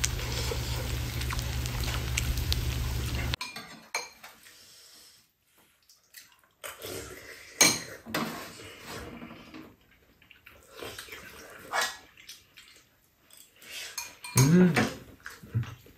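Metal spoons clinking and scraping against ceramic bowls and a frying pan as people eat, in scattered taps with short pauses between. For the first three seconds or so a steady low outdoor rumble runs underneath, then cuts off abruptly.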